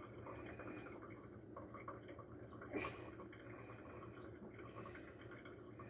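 Faint drips and trickles of cooking water running from a tipped steel pot into a colander in a stainless steel sink, with light clicks of a utensil against the pot and one sharper knock about three seconds in.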